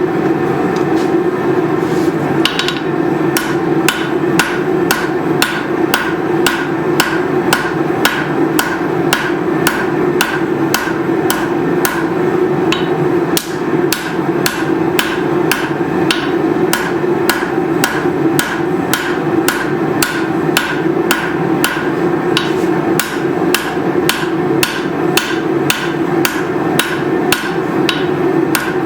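Hammer blows on hot leaf-spring steel at the anvil, a steady run of about two to three ringing strikes a second, over a continuous steady hum.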